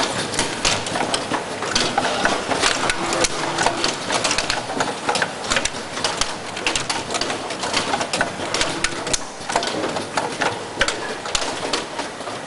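Automated soldering machine running: pneumatic actuators and component handling make many sharp, irregular clicks and clatters over a steady machinery noise.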